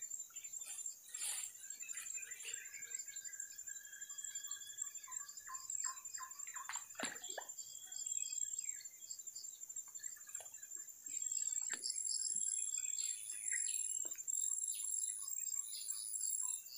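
Forest birds chirping and calling over a steady high insect drone. About two-thirds of the way in, a high pulsing insect call joins, repeating about once a second, and there are a few faint knocks.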